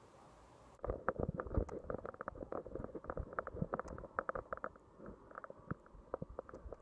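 Handling noise from a chest-mounted phone as the wearer clambers on a metal railing and stone steps: a dense run of irregular scuffs and knocks from his body, clothing and hands, starting abruptly about a second in.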